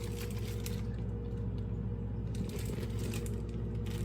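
Light clicks and clatter of parts being handled in and around a microwave oven, over a steady low hum.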